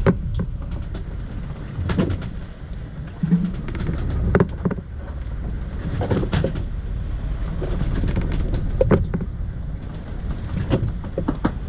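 Muffled low rumble of a sailing boat running before big waves, broken by irregular knocks and clicks.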